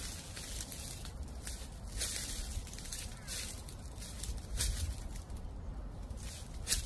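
Footsteps crunching through dry fallen leaves, an irregular step every half second to a second, over a steady low rumble of wind.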